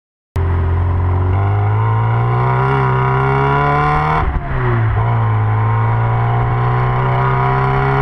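Classic Mini's A-series engine pulling hard and rising in pitch, with a quick drop in revs at an upshift about halfway through before it climbs again. It is heard from a camera mounted low at the rear of the car.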